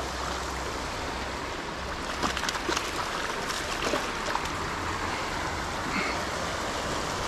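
Steady rush of flowing creek water, with a hooked fish splashing and thrashing at the surface a couple of seconds in.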